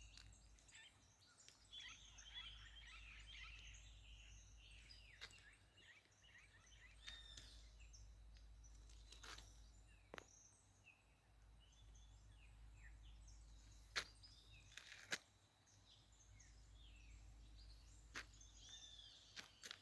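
Faint birdsong: several birds chirping and calling, with a few sharp clicks now and then, the loudest two about a second apart near the end.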